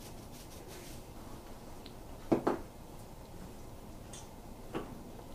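Quiet kitchen background with a sharp double knock about two and a half seconds in and a softer knock near the end: a seasoning shaker being set down on the stove counter.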